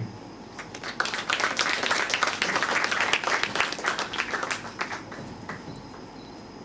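Audience clapping. It starts about a second in, is fullest for a few seconds, then dies away about five seconds in.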